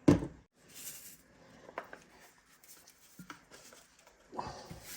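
Kitchen handling sounds: a sharp knock at the very start, then faint scattered clicks and short rustles as a bottle and seasoning are handled over a bowl of raw beef.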